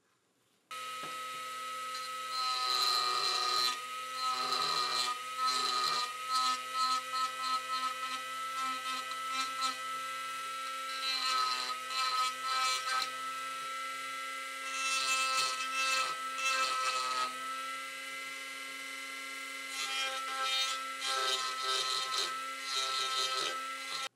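A small electric power tool switches on about a second in and runs at a steady whine. Its pitch holds constant while bursts of harsh grinding noise come and go as it is worked against a part. It cuts off abruptly near the end.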